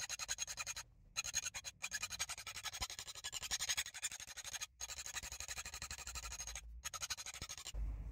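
Hand file rasping in quick, even strokes against the steel bit of a Gränsfors Bruks Wildlife hatchet, filing out a chip in the edge. The sound drops out briefly three times and stops just before the end.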